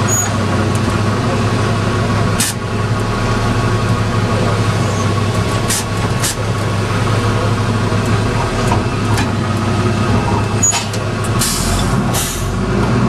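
Garbage truck's diesel engine running steadily, heard from inside the cab, while the Curotto Can's automated arm lifts and dumps a cart. Several short sharp clatters and hisses come through, with a longer hiss near the end.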